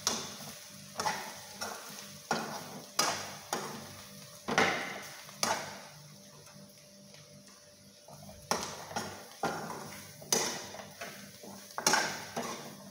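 A spoon stirring jackfruit seeds in a frying pan, scraping and knocking against the pan at irregular intervals over a low sizzle. The stirring pauses for about two seconds around the middle.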